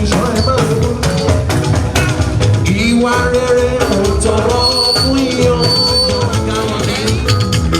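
Loud music with a steady drum beat and singing.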